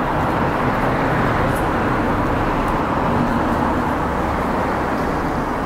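Street traffic: cars driving past on the road, a steady rush of tyre and engine noise.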